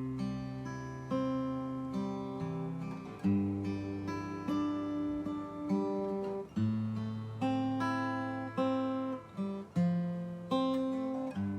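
Acoustic guitar intro: notes and chords picked one after another, each ringing and fading before the next.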